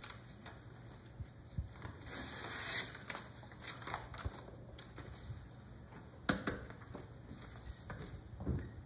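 A sheet of paper rustling as it is handled and pressed flat onto a wooden board, with a hiss of paper sliding about two seconds in and a few light knocks, the sharpest a little after six seconds. A low steady hum underneath.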